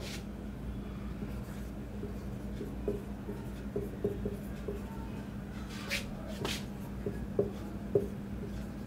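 Marker pen writing on a whiteboard: scattered light taps and short strokes, with two longer, hissier strokes about six seconds in, over a steady low hum.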